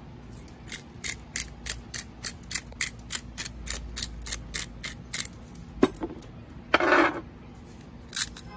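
Hand-twisted spice grinder cranked over the tuna steaks, giving a ratcheting run of clicks about three a second that stops after about five seconds. A short louder scrape comes near the end.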